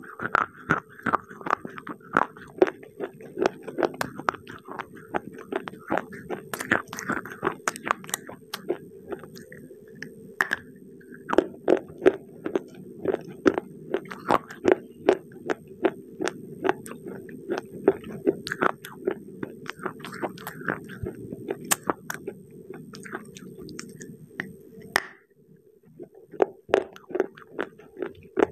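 Close-miked biting and chewing of crunchy dry clay chunks: a steady stream of sharp crunches, several a second, with a short lull near the end.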